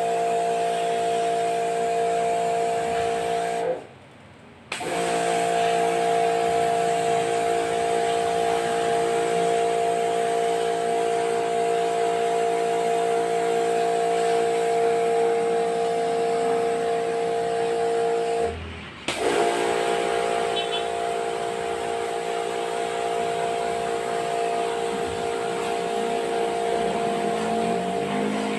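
Electric pressure washer running with a steady motor hum and the hiss of its spray on the fins of a split-type air conditioner's indoor coil. It cuts out for about a second a few seconds in, and again briefly later on, then starts up again.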